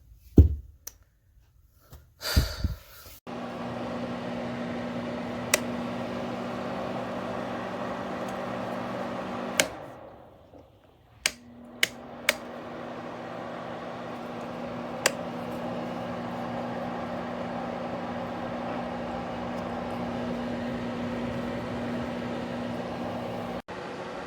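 Small electric space heater's fan running steadily with a low hum. It dies away about ten seconds in, a few sharp clicks follow, and it spins back up gradually.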